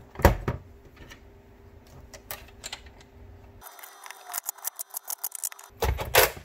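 Cordless impact driver snugging up a screw in the plastic back of an instrument cluster: about two seconds of motor whine with rapid clicking, then a short loud burst near the end. A knock of the plastic housing being handled comes about a third of a second in.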